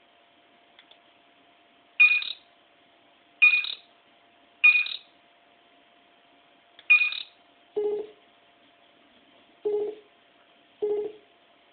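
Star Trek: TNG LCARS computer beeps played through PC speakers as sound effects for computer functions. There are four short high-pitched chirps, then three shorter lower-pitched beeps near the end, over a faint steady hum.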